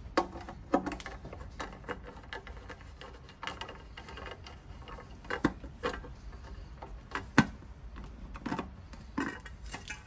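Scattered small clicks and taps from handling a molded plastic thermostat access cover on an electric water heater tank as its Phillips screws come out and the cover is pried off. A few sharper snaps come about five and a half, six and seven and a half seconds in.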